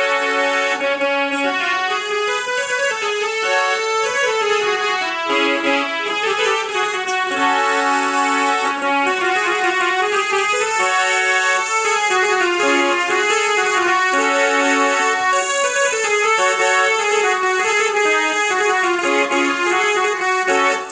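A melody of held notes played on a harmonium's keyboard, sounding through its built-in Casio electronic sound module and speaker rather than through its bellows-blown reeds. The notes run on without a break.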